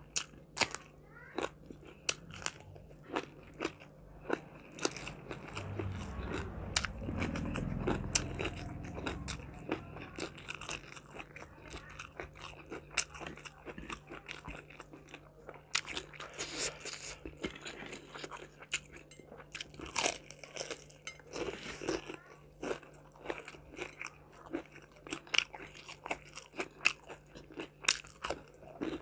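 Close-miked crunching bites and chewing as a person eats raw vegetables and crispy fried chicken by hand, with many sharp separate crunches. A louder low rumble comes about six seconds in and lasts some four seconds, over a faint steady low hum.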